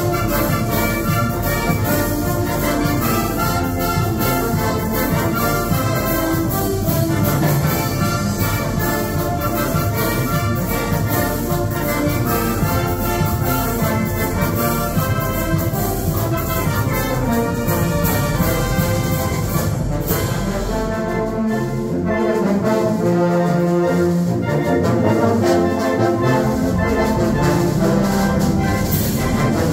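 Live wind band playing: clarinets and saxophones with trumpets, trombones and sousaphones, and a steady beat. About twenty seconds in the band briefly thins out, then the low brass comes back with long held notes.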